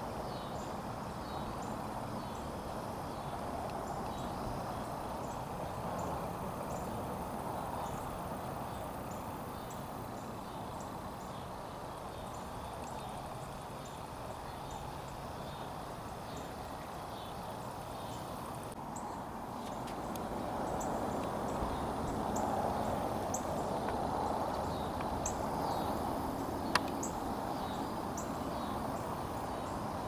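Steady rushing of a shallow creek flowing, with faint high ticks scattered through it and one sharp click late on.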